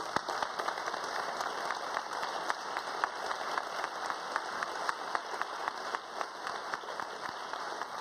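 An audience applauding: many hands clapping together in a steady patter.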